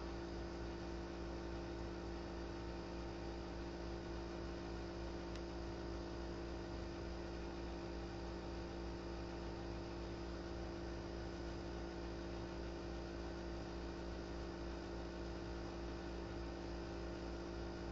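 Steady electrical hum made of several fixed tones, over a constant faint hiss.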